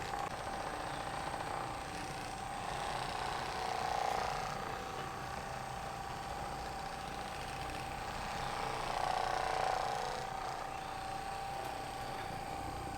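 A small electric motor running with a steady whine, swelling briefly about four seconds in and again near ten seconds, then cutting off abruptly.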